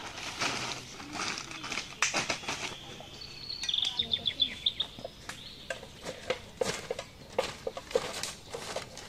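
Plastic tarpaulin rustling and crinkling as it is spread over the ground. About three and a half seconds in, a bird gives a rapid trilling call. It is followed by scattered light taps and rustles.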